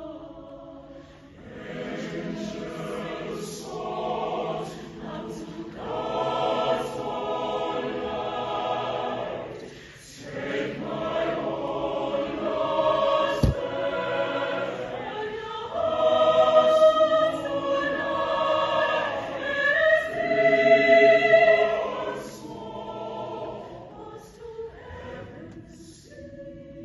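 Mixed choir of men's and women's voices singing slow, sustained chords that swell and ease, loudest a little past the middle and softening near the end.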